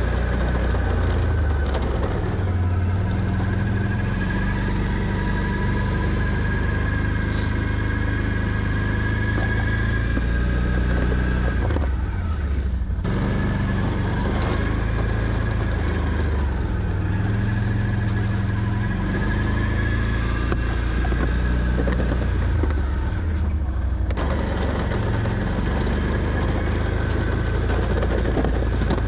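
Can-Am Outlander 650 ATV's V-twin engine running under load while plowing snow, its engine speed rising and falling. There are short breaks about twelve and twenty-four seconds in.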